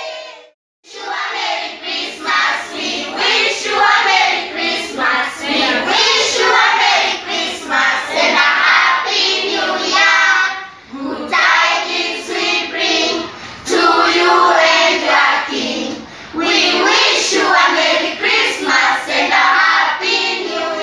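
A group of children singing a Christmas carol together. The singing breaks off briefly just under a second in, then carries on.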